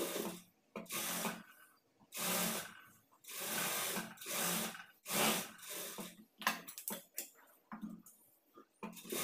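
Sewing machine stitching in a series of short runs, each under a second, with brief pauses between as the fabric is repositioned.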